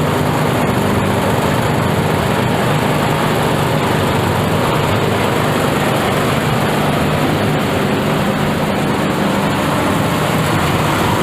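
Clove threshing machine running steadily at full speed, a loud even engine drone with dense mechanical rattle.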